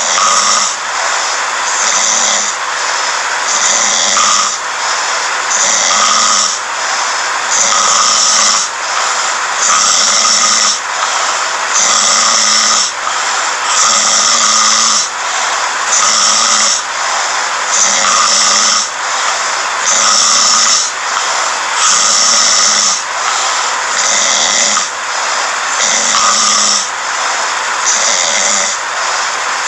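A sleeping man snoring in a steady rhythm, about one snore every two seconds.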